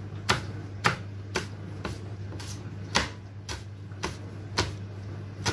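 Kitchen knife chopping a red chilli on a wooden cutting board: about ten sharp knocks of the blade on the board, roughly two a second, over a steady low hum.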